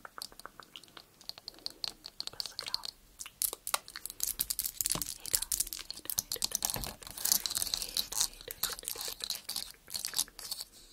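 Fingertips tapping and scratching on a camera lens: a dense, rapid run of crisp clicks and scratches.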